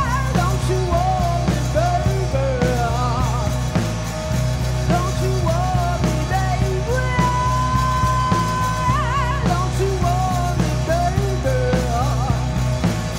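Live rock trio: a woman singing lead, her long held notes wavering with vibrato, over electric guitar, electric bass and a drum kit.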